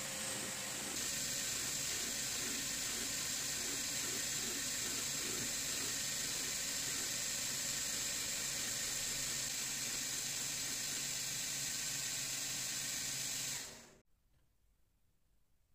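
Belt grinder running, its abrasive belt grinding the steel cleaver blade with a steady hiss. It grows louder and brighter about a second in and cuts off suddenly near the end.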